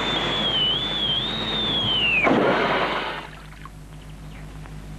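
Comedy sound effect of a falling whistle: a single high whistle that wavers, then glides downward for about two seconds and plunges abruptly with a burst of noise, over a rush of noise that dies away about three seconds in.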